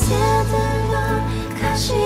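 Background music: a song with a singing voice over a sustained bass and chords.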